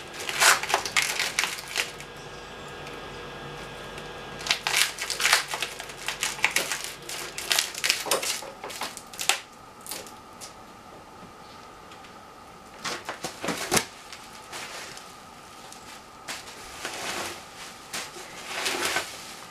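Packing tape being cut and peeled off the end cap of a sturdy cardboard shipping tube, in several scratchy bursts of tearing and crinkling, with a sharp knock about 14 seconds in.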